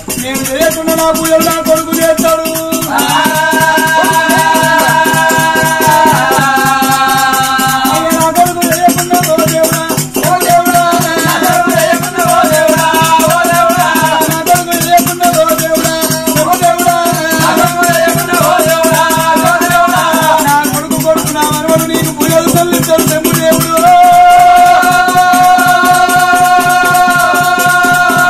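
Oggu katha folk ensemble: voices singing in long held and wavering notes over fast, steady rattling percussion. The singing swells and is loudest near the end.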